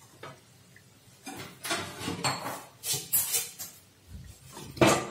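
Perforated metal skimmer scraping and clinking against a metal kadhai while lifting fried namak pare out of the oil, in several short bursts, with one louder knock near the end.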